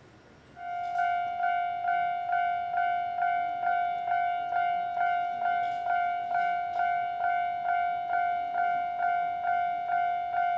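Japanese railway level-crossing warning bell starting up and ringing in a steady, even rhythm of a little over two strikes a second, each a bright ringing ding. It signals that a train is approaching the crossing.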